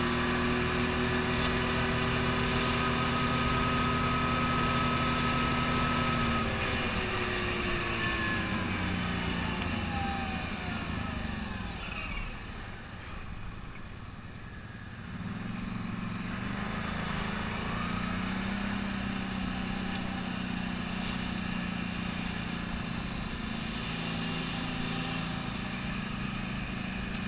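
ATV engine heard from on board, running steadily at road speed. About six seconds in it drops in pitch as the machine slows, stays low and quieter for a few seconds, then picks up again and runs steadily at a lower pace.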